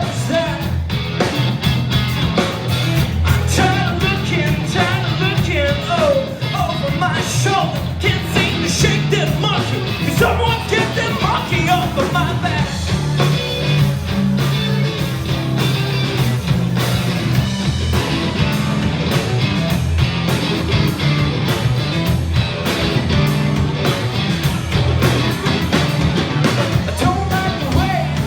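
Live band playing a fast rock tune.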